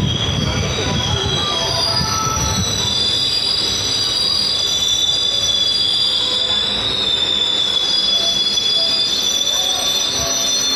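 Indian Railways passenger train's wheels squealing on the rails as the coaches roll slowly along the platform: a steady, high-pitched, wavering squeal of several tones over a low rumble.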